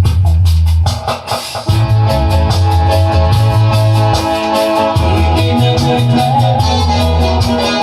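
Reggae instrumental passage: a heavy bass line, drums and guitar, with no singing. The level dips briefly about a second in before the full band comes back.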